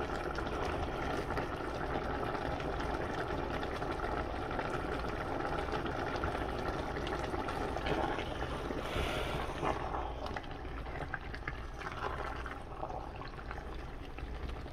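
Pot of eru soup simmering with a steady bubbling while a spatula stirs through the leaves and broth; a few light knocks and scrapes of the spatula against the pot in the second half.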